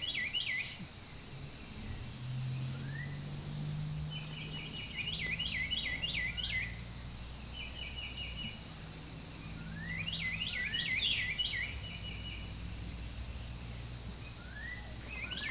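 A songbird singing short, fast phrases of rising notes, repeated every few seconds, over a steady high-pitched hum and a low rumble.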